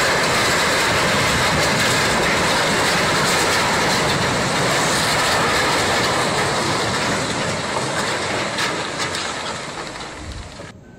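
Loud, steady grinding and scraping of a cruise ship's steel hull driving up onto the shore as it is beached for scrapping. The noise eases off over the last few seconds and cuts off abruptly near the end.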